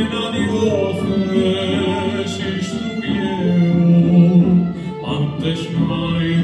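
Live chamber music: a string orchestra of violins and cellos playing sustained lines, with a voice singing over them and a few strokes on a drum beaten with a soft mallet.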